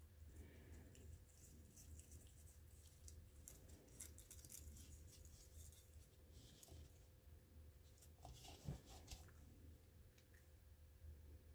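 Faint, irregular wet clicks of a cat's tongue lapping yogurt from a plastic cup, with a slightly louder cluster of clicks about nine seconds in, over a low steady hum.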